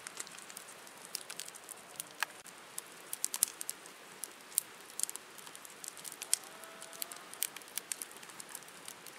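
Wood fire crackling in a steel fire ring, with irregular sharp pops and snaps from the burning logs.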